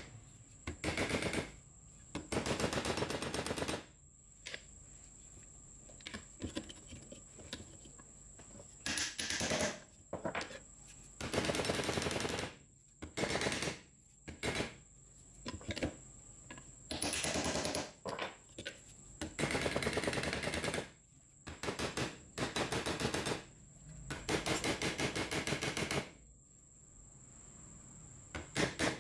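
A rusty metal part of an old electric angle grinder rapped hard and fast against the steel jaw of a bench vise, metal on metal, in about a dozen short runs of quick knocks with brief pauses between them.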